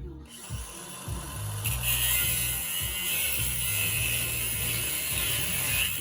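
A steady mechanical tool sound with a hiss, starting shortly in and growing louder and brighter about two seconds in, then cutting off at the end, over background music with a bass line.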